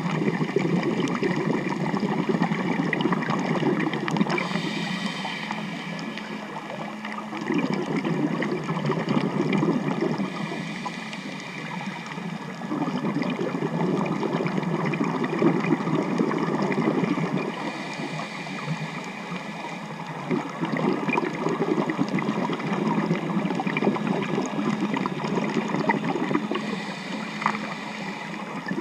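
Underwater sound of a scuba diver's regulator breathing: exhaled bubbles gurgling in swells of a few seconds, with a short hiss of inhalation between them. Under it runs a steady hum with several steady tones from nearby boat traffic.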